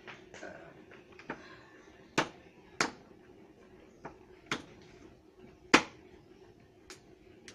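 A series of sharp, irregular knocks or taps, the loudest a little before six seconds in, over a low steady hum.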